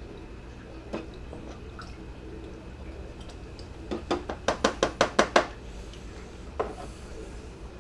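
Light clicks and taps from handling a plastic aquarium hood and a small feeding cup, including a quick run of about eight sharp taps about four seconds in.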